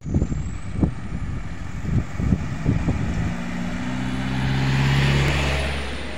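An SUV drives past close by: its engine hum and tyre noise swell to a peak about five seconds in and then fade. Before it, irregular low thumps.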